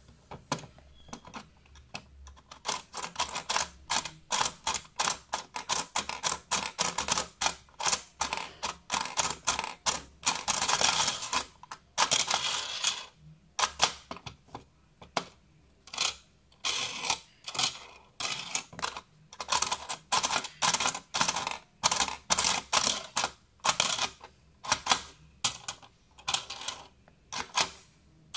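Plastic Pokémon slider toy clattering as it is worked: quick, uneven plastic clicks and clacks from its stair mechanism and figures, with a denser, continuous rattle about eleven seconds in.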